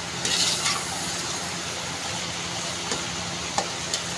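Chicken pieces frying in an aluminium pot with a steady sizzle. A metal ladle scrapes through them about half a second in, and taps lightly against the pot a few times near the end.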